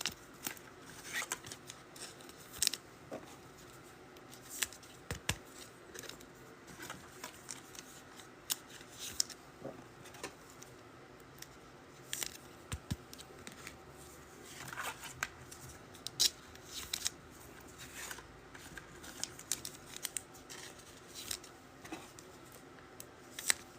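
Trading cards and pack wrappers being handled: scattered short clicks, snips and crinkles at irregular intervals, with quiet stretches between.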